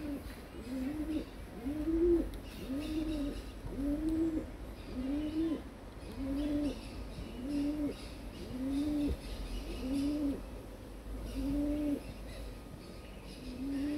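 A pigeon cooing: a long even series of low, hollow single notes, each rising then falling, about one a second. Small birds chirp faintly above it.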